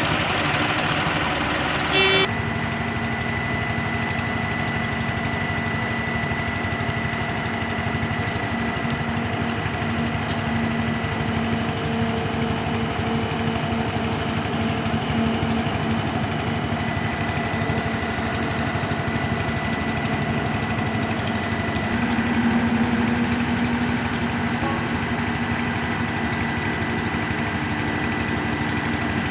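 Concrete pump truck's engine running steadily at a constant speed, with a steady high whine over it. There is a brief louder burst about two seconds in.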